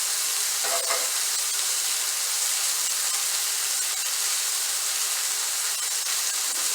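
Salted chicken pieces searing in a hot pan: a steady sizzle with fine crackling.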